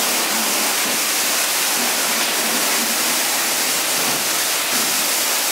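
Car wash pressure-washer wand spraying a steady hissing jet of water onto mud-caked plastic full-body goose decoys.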